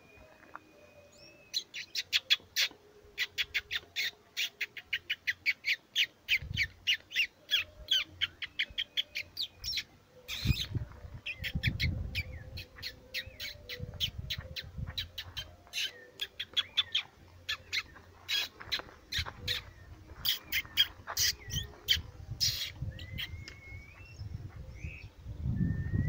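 Wild birds singing in dry scrub: a fast run of sharp, repeated high notes, several a second, with a few short whistled glides. A low rumble comes in about ten seconds in.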